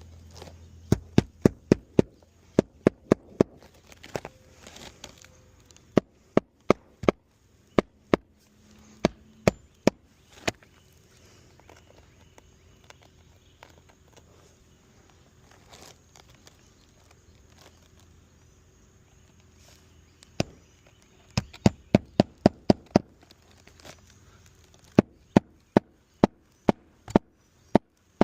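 Hammer driving roofing nails through asphalt shingles on a roof: runs of sharp blows about three a second, a few blows per nail, with pauses between nails and a quiet spell in the middle.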